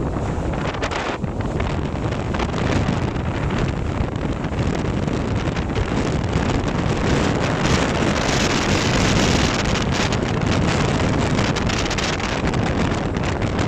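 Wind buffeting the microphone over the steady rush and splash of water along the hull of a Grand Soleil 39 sailing yacht under sail.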